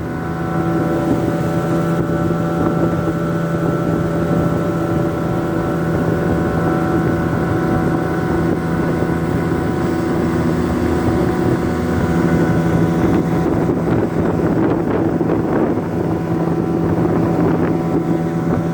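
A fishing boat's engine running steadily under way, holding a constant pitch, with water and wind noise beneath it.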